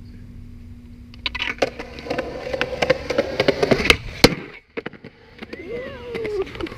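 Skateboard wheels rolling on concrete, growing louder as the board comes closer, then a sharp pop of the tail and a hard clack of the board landing around four seconds in.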